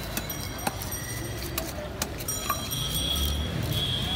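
Irregular sharp clicks and scraping taps of climbing perch (koi) being scaled and cut against an upright boti blade, with a few thin high ringing tones and a low background hum that swells about two-thirds of the way in.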